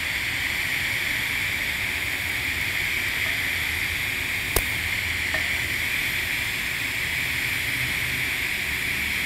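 TIG welding arc on carbon steel pipe, running steadily at 130 amps during the hot pass: an even hiss, with one sharp click about four and a half seconds in.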